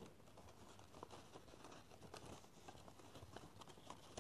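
Near silence, with faint rustles and small ticks of book pages being folded by hand.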